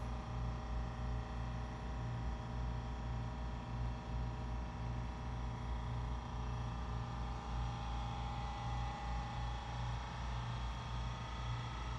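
Seiko SLH-2B 7-class walking-foot industrial sewing machine running steadily, stitching through layers of heavy webbing, with an even low rhythmic pulse from the needle stroke over the motor's steady hum.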